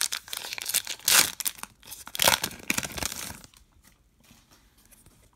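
Foil trading-card pack wrapper being torn open and crinkled, with two louder rips about one and two seconds in. The crinkling stops after about three and a half seconds.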